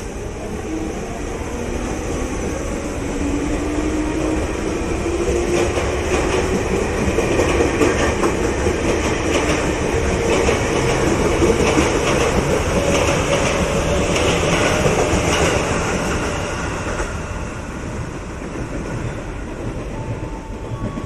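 Former JR 205 series electric commuter train pulling away and passing close by, its motor whine rising steadily in pitch as it gathers speed over a steady rumble, with wheels clicking over rail joints. It is loudest in the middle and fades as the last cars move off.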